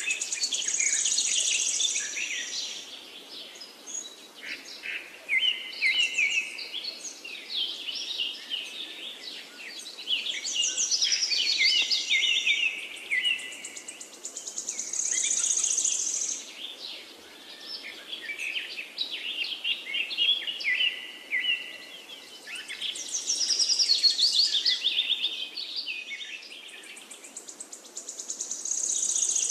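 Birds chirping and singing in quick, trilled phrases, in spells that swell and fade every few seconds.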